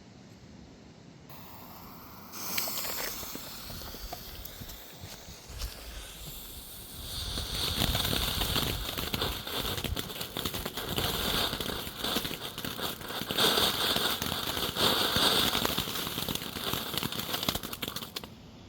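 Small consumer ground firework burning: a hiss starts about a second in and a few pops follow, then from about seven seconds it settles into a steady hissing spray full of dense crackle. It cuts off shortly before the end.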